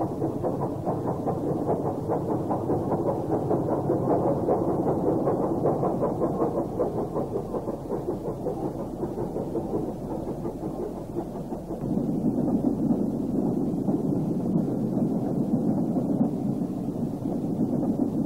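Steam train running: a continuous heavy rumble of locomotive and train noise. The sound changes character and grows a little louder about twelve seconds in.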